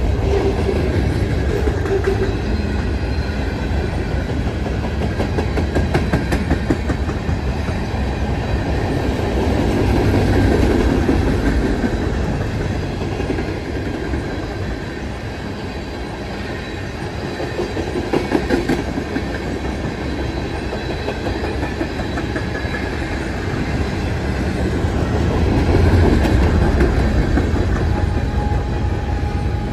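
Freight cars of a mixed freight train rolling past close by: a steady rumble of steel wheels with rapid clickety-clack over the rail joints, swelling louder around ten seconds in and again near the end.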